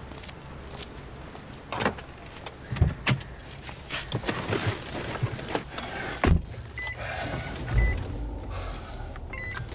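A large saloon car being closed up and got into: a run of clicks and knocks, then a heavy thump about six seconds in as a door or boot lid shuts, and a second low thump near the end.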